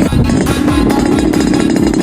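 Music mixed with a Yamaha RX-King 135 two-stroke motorcycle engine running loud and steady.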